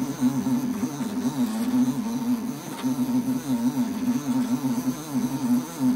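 Drive motor of a 3D-printed Arduino rotary indexer turning the table, a steady hum whose pitch keeps rising and falling as its speed changes under hand-wheel control.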